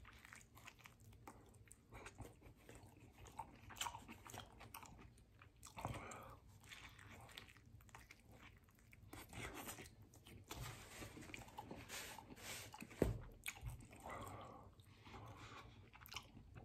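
A man biting into and chewing a vegetarian burrito close to the microphone: faint, wet mouth sounds and soft breaths with scattered small clicks, and one sharper click about thirteen seconds in.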